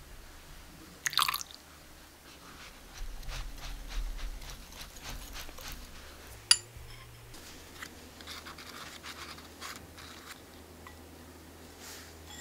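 Wire whisk stirring a runny sugar glaze in a glass bowl, with rapid light ticks and scrapes of the wires against the glass and a louder flurry about a second in. One sharp clink of metal on glass about six and a half seconds in.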